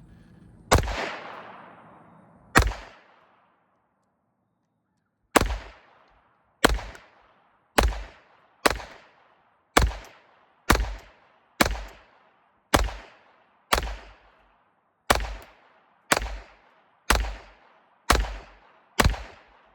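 Taurus TX22 .22 LR pistol firing a magazine of Winchester white box ammunition, sixteen shots in all. Two come near the start, then after a pause of nearly three seconds fourteen follow at about one a second, each trailing off in echo.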